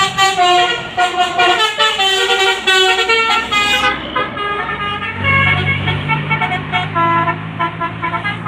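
Bus basuri (telolet) melody horn playing a fast tune of short notes that step up and down in pitch. From about five seconds in, the bus's engine rumbles low and steady underneath.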